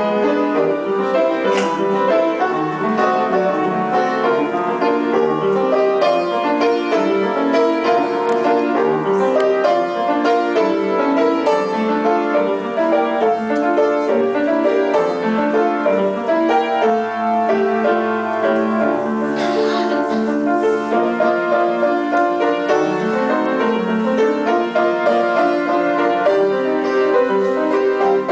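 Piano music: a melodic piece played without a break, with notes moving continuously.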